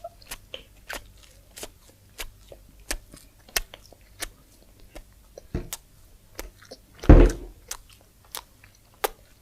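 Close-up chewing and biting of crispy fried food, fries and chicken nuggets, with sharp crunches about once or twice a second and one louder, deeper crunch about seven seconds in.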